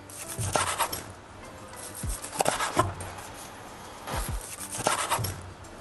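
A chef's knife sawing back and forth through a grilled tomahawk steak on a wooden cutting board, in three bursts of short rasping strokes about two seconds apart.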